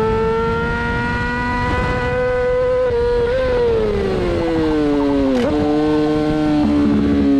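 Sport motorcycle engine at high revs with wind rush, recorded on board on a race track. The engine note climbs slowly, then falls over about two seconds, gives a sharp step about five and a half seconds in, and holds steady near the end.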